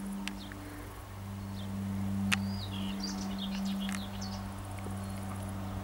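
Small birds chirping and trilling over a steady low hum, with one sharp click a little over two seconds in.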